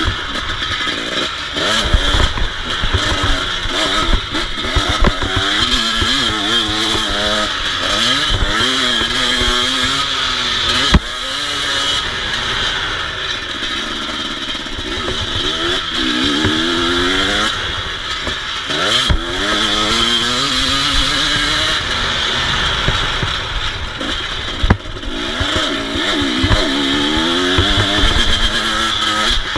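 KTM EXC 250 two-stroke dirt bike engine ridden hard, its pitch repeatedly rising under the throttle and falling back as the rider shifts and rolls off, over and over. Short knocks and clatter from the bike over the rough ground run through it.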